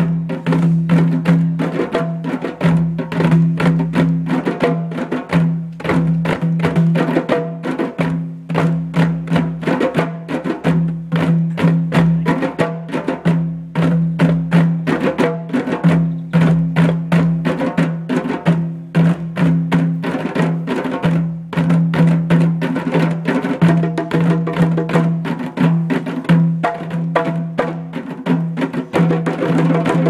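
A group of djembe drums played by hand together in a fast, steady rhythm, the strikes dense and even throughout.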